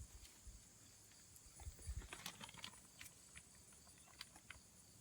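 Near silence broken by a few soft footsteps and small clicks and knocks, bunched about two seconds in.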